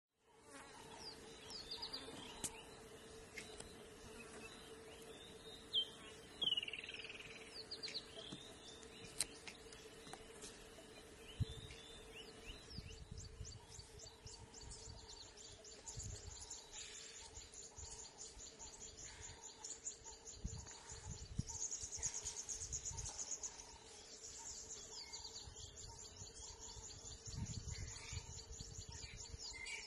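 Wild birds calling with short chirps over a faint insect drone. From about halfway a fast, even, high insect trill takes over, with a few soft low thumps.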